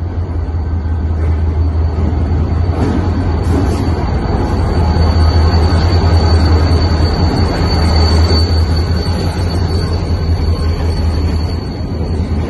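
Lake State Railway diesel-electric freight locomotive approaching and passing close by, its engine rumbling low with a steady high whine over it. It is loudest as it goes by, about halfway through, and eases off near the end.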